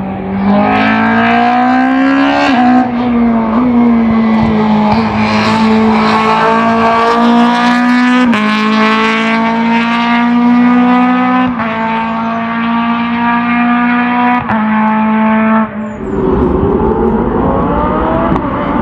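Hillclimb race car's engine pulling hard under acceleration. Its pitch climbs in each gear and drops abruptly with each upshift, about five times. Near the end the engine note fades into a broad low rumble as the car gets farther away.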